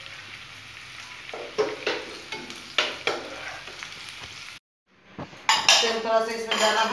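Onion and capsicum pieces sizzling in hot oil in a frying pan while a metal spoon scoops them out, knocking against the pan a few times. The sound cuts off suddenly about two-thirds of the way through, and louder clattering of steel bowls and utensils follows near the end.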